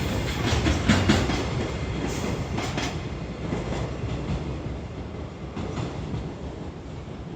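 Container freight train's wagon wheels clattering over rail joints as it passes. The clicks thin out after about three seconds and the rumble fades steadily as the train draws away.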